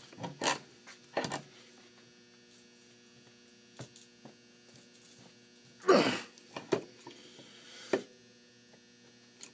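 Scrapes, creaks and clunks of a Master Lock No. 22 padlock being wrenched while clamped in a vise, the lock body flexing rather than giving way. The loudest is a grinding scrape about six seconds in. A steady electrical hum runs underneath.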